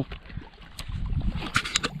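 Wind buffeting the microphone over small waves lapping at the lakeshore, a low steady rumble. A short run of sharp clicks comes about one and a half seconds in.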